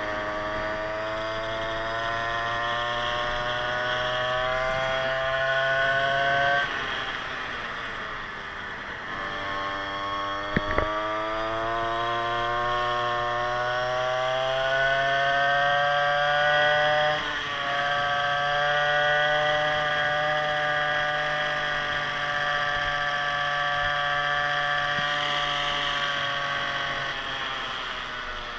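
Small two-stroke engine of a 52cc big-bore motorized scooter built from a Scooter X Dirt Dog, running under way. Its pitch climbs as it accelerates, drops off about six seconds in, climbs again, dips briefly around seventeen seconds, holds steady, then falls away near the end. There is a short sharp knock about ten and a half seconds in.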